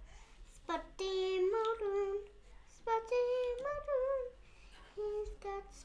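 A young girl humming a wordless tune to herself in a high voice: two phrases of long held notes that waver a little, then a few short notes near the end.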